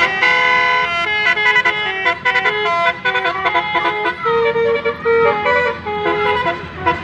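Buses' Basuri telolet melodic air horns playing a tune: a quick run of short horn notes stepping up and down in pitch, with a longer held note about four seconds in.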